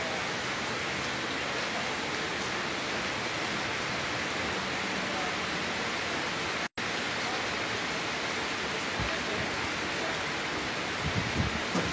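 Steady rain falling, an even hiss with no let-up. The sound cuts out for an instant about seven seconds in.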